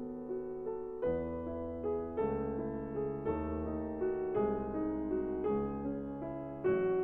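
Slow, soft lo-fi music on a piano-like keyboard, with a new chord over a low bass note about once a second.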